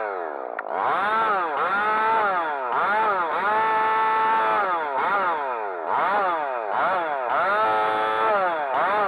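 Husqvarna 375 XP two-stroke chainsaw cutting into a spruce stump. Its engine revs up and falls back again and again, and is held at full revs for a second or two around the middle and again near the end.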